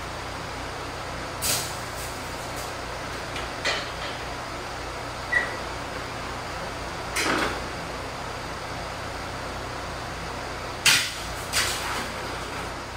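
A series of short, sharp knocks and clanks, about six spread irregularly, the loudest near the end, over a steady background noise, with one brief high squeak about five seconds in.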